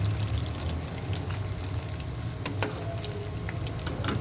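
Batter-coated chicken drumsticks deep-frying in hot oil: a steady bubbling sizzle with scattered sharp crackles, the louder ones about two and a half seconds in and near the end. The pieces are being fried on until they turn golden.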